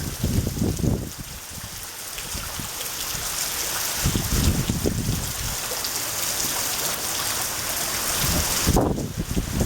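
Heavy typhoon rain hissing steadily. Gusts of wind rumble against the microphone at the start, around the middle and again near the end.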